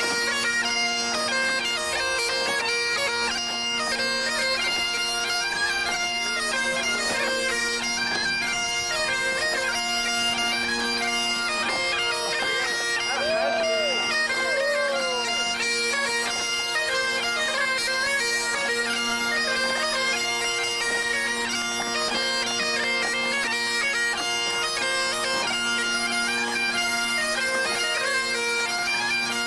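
Biniou braz (Breton bagpipe) and bombarde playing a tune together over the bagpipe's steady drones.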